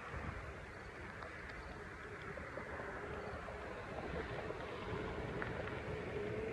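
Steady rushing noise of riding a Onewheel: wind on the microphone and the tyre rolling, with a faint hum from the hub motor that rises slightly near the end.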